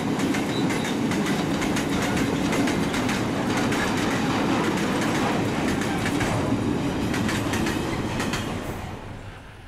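Freight train wagons, tank cars and then open high-sided wagons, rolling past with a steady clickety-clack of wheels over the rail joints. The noise drops away near the end as the last wagon goes by.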